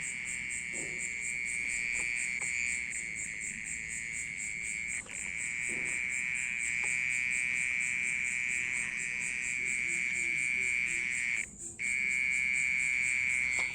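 Continuous high-pitched insect trill, loud and steady like a small water pump, from an unseen insect hidden in a flower pot's soil. It falters briefly about five seconds in and stops for about half a second near the end before resuming.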